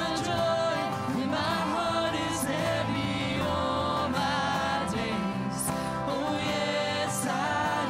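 Contemporary worship song: voices singing held notes over steady band accompaniment.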